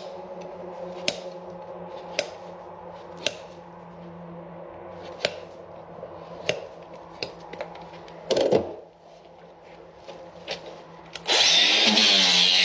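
Hoof knife paring the sole of a Shire horse's hoof: sharp cutting clicks about once a second over a steady hum, with one louder scraping stroke about eight seconds in. Loud strummed music comes in near the end.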